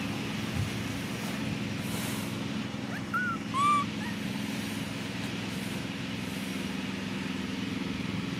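A baby macaque gives two short, high-pitched coo calls about three seconds in, each rising then falling in pitch, over a steady low hum.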